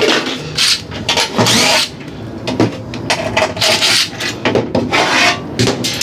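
Irregular scraping, rubbing and knocking of metal parts being handled and pulled loose as a scrap air-conditioning unit is taken apart by hand.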